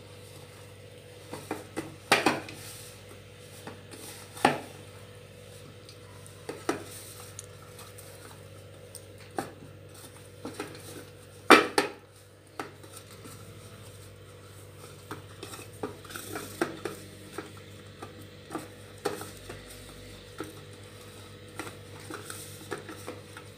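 Stainless steel bowl knocking and scraping on a stone counter as wheat-flour dough is kneaded by hand in it: irregular knocks, the loudest about halfway through, with quicker light taps near the end.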